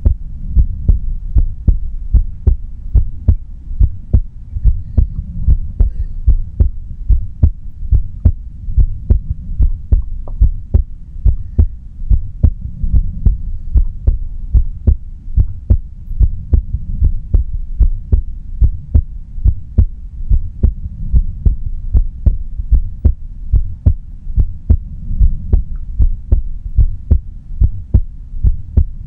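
A woman's heartbeat heard close up, beating steadily in a low, even rhythm of a little over one beat a second.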